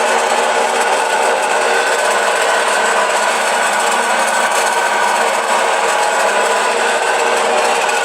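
Samsung washer-dryer on its spin cycle, running with a steady, loud mechanical noise with a faint whine in it: the abnormal spin noise the machine is making.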